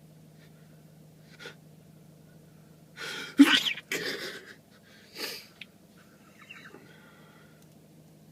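A man's loud sneeze about three seconds in, with a shorter burst about two seconds after it, the kind of sneeze he says he can't help. Both sound over a faint steady hum.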